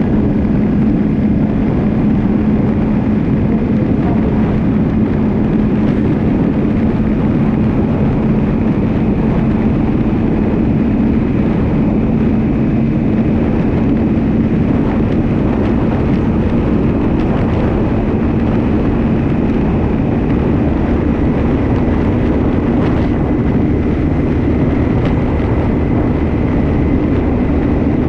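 A vehicle's engine running steadily at cruising speed: a constant drone with a rushing noise over it.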